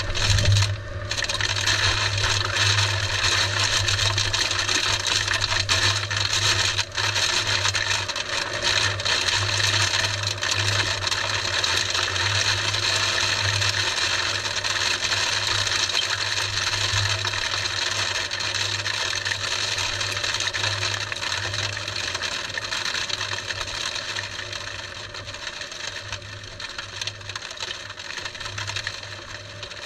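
Strong wind rushing over a tornado probe's microphone, a steady roaring noise after the tornado's passage, with a brief louder burst at the start. It eases gradually over the last ten seconds.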